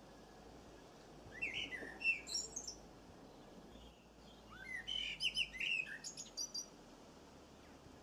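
Small songbird chirping: two short bouts of quick, high notes, the first about a second and a half in and the second around five seconds in.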